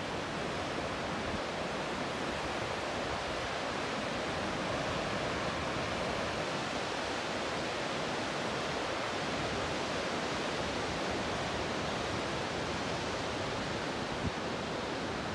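Steady roar of ocean surf breaking on a sandy beach, an even wash of noise without pauses.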